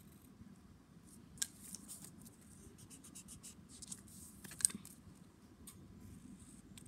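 Pencil scratching on a sheet of paper while the sheet is handled, with sharp clicks about a second and a half in and again, loudest, at about four and a half seconds.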